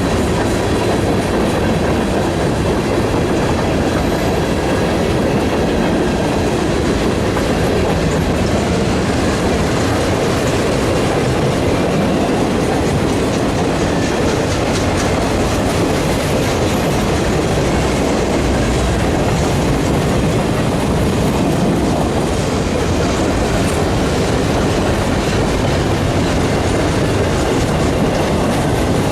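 Train cars rolling past at a steady pace: a continuous rumble of wheels on rail with clickety-clack over the rail joints.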